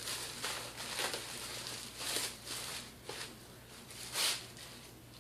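Rustling and crinkling as a chest rig and its packaging are handled and unpacked: a run of short rustles, the loudest about four seconds in.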